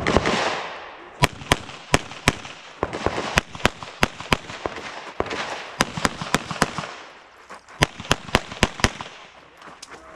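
Handgun fired in quick pairs and strings of shots during a practical-shooting stage, with short pauses between strings as the shooter moves; each shot has a short echo.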